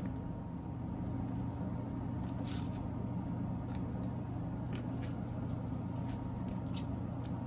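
Someone chewing a stick of beef jerky: a few short, scattered mouth clicks and smacks over a steady low hum.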